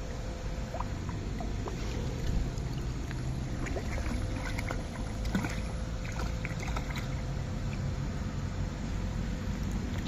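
A hooked brown trout splashing at the surface of a stream in scattered bursts, with a sharper splash near the end, over a steady low rumble.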